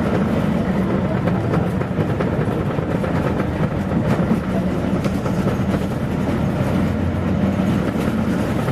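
Interior running noise of a 1989 Mitsubishi P-MP218M bus: its V8 diesel drones steadily underneath, with light rattles and clicks from the body.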